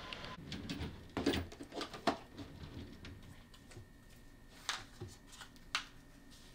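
Handling noises at a desk: a phone taken off its stand and set down, then headphones picked up, giving a scatter of light clicks and taps, the sharpest about a second in, two seconds in, and near five seconds in.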